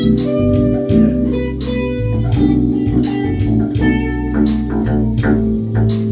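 Electric bass playing a line of sustained low notes that change about once a second, with higher plucked string notes over it, as in an informal jam.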